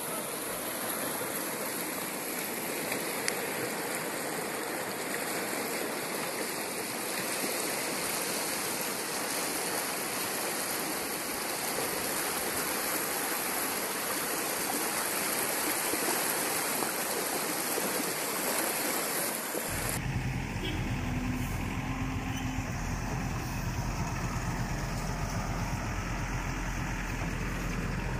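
Muddy floodwater rushing down a swollen stream channel after heavy rain, a steady even rush. About twenty seconds in the sound cuts abruptly to a different recording: a steady low hum like an idling engine.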